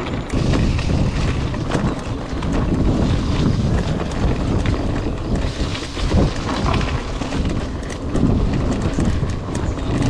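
Wind buffeting the action camera's microphone on a moving mountain bike, with steady low rumble and many short rattles and clicks from the bike over a rough road.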